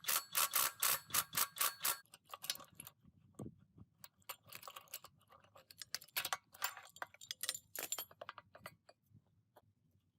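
Hand tools working on metal compactor parts: a quick run of sharp clicks, about five a second, for the first two seconds, then scattered clicks and clinks that thin out near the end.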